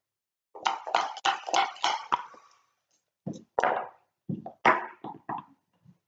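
Backgammon dice rattling in a quick run of clicks, then thrown onto the board, where they knock and bounce several times before coming to rest.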